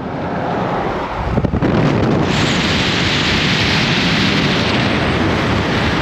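Road rumble from a moving car, then, about two seconds in, a loud rush of wind buffeting the microphone as it meets the open air at an open car window.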